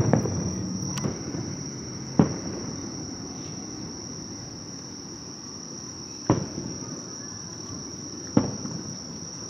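Distant aerial fireworks bursting: about five sharp booms, two close together at the start, then one about 2 s in and two more near the end, each trailing off in a short rolling echo. Under them runs a steady high-pitched insect trill.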